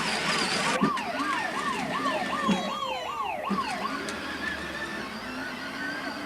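Electronic toy siren wailing in quick, regular up-and-down swoops, about three a second, then cutting off about four seconds in.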